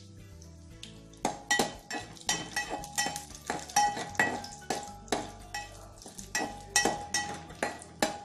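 Metal spoon stirring and scraping whole spices around a metal cooking pot, striking the pot's sides in a quick run of ringing clinks, two or three a second, starting about a second in.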